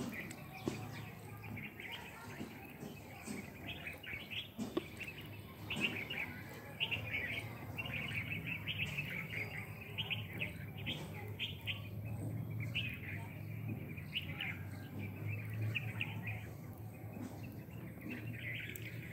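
A flock of small birds chirping and chattering nonstop, many short calls overlapping, over a low steady hum.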